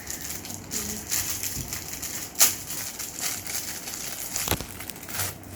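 Crinkling and rustling of handled plastic, as a small pea-pod fidget toy is unwrapped, with a sharp click about two and a half seconds in.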